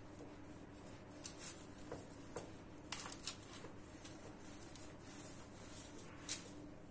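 Hands shaping pide dough on a parchment-lined baking tray: faint, scattered rustles of the baking paper and light taps as the dough edges are pressed and stretched. The clearest bunch comes about three seconds in, and there is another short one near the end.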